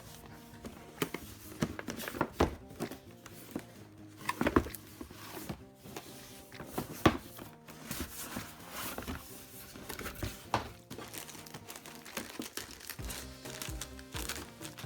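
Router packaging being opened and handled: crinkling wrapping and sharp clicks and knocks at irregular moments, the loudest about two, four and a half and seven seconds in. Background music plays under it.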